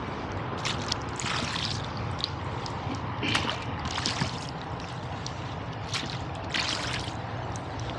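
Oars of a rowboat dipping and pulling through river water in a steady rowing rhythm, with a splash and drips from the blades every second or so over a low steady rumble.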